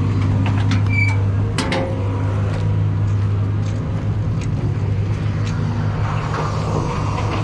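An engine running steadily at a low idle, with scattered light metallic clicks and knocks over it.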